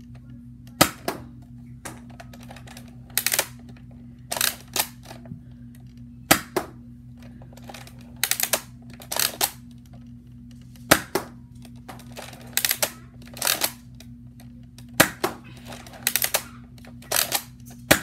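A Nerf Accustrike Raptorstrike, a spring-powered bolt-action dart blaster, being fired repeatedly: a sharp snap roughly every four to five seconds. Between the shots come the rasping clacks of the bolt being pulled back and pushed forward to prime it and chamber the next dart. A steady low hum runs underneath.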